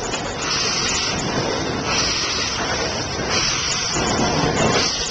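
Southern Railway Lord Nelson class four-cylinder 4-6-0 steam locomotive No. 850 moving slowly, hissing steam from its open cylinder drain cocks in regular bursts about every second and a half: the sound of a locomotive getting under way with its cylinders being cleared of water.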